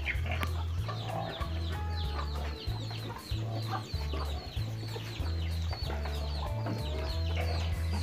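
Chickens clucking, with many short, high, falling cheeps repeating throughout, over a steady low bass line of background music.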